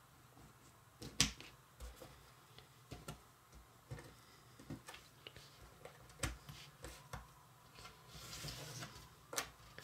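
Jigsaw puzzle pieces clicking and tapping as they are picked up and set down on a table, about eight light clicks spread out, with a brief rustle near the end.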